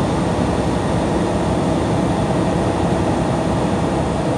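Truck driving on the highway: steady engine and road noise.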